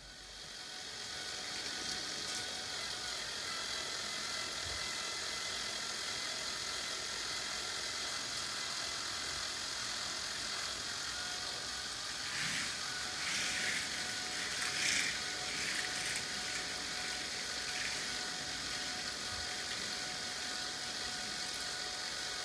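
K'nex model roller coaster running: the small electric motors that drive its lift and station chain whir steadily with a thin whine. From about halfway through, the plastic train sets up a few seconds of clicking and rattling along the track.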